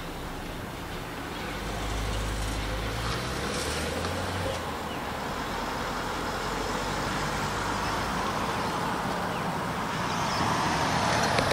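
Steady rumble of heritage passenger carriages rolling away on the rails at a distance, swelling a little near the end.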